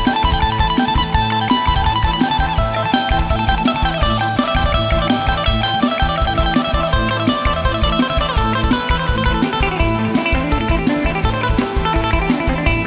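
Instrumental band music with no singing: plucked electric guitar lines over a steady, driving bass and drum-kit beat.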